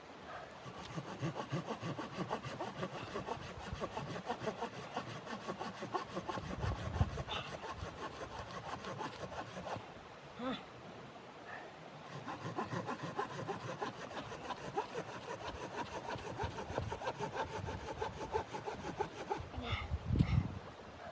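Hand saw cutting wood in quick back-and-forth rasping strokes, stopping briefly about halfway through and again near the end.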